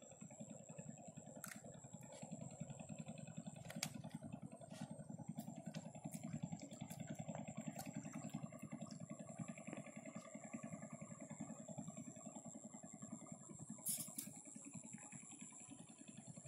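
A faint engine running steadily at a distance, with a thin steady high whine above it and a few soft clicks.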